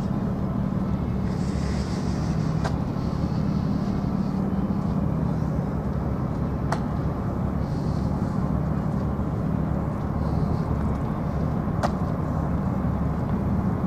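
Steady low rumble of a motor vehicle's engine and road noise while moving, with a faint hum and a few light clicks.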